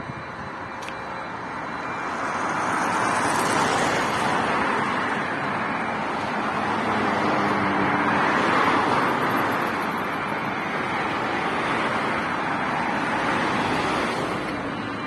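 Road traffic noise from passing cars, swelling and fading a few times.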